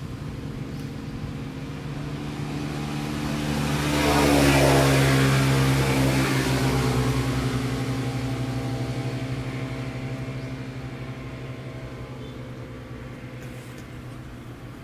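A motor engine passing by, swelling to its loudest about four to five seconds in and then slowly fading away.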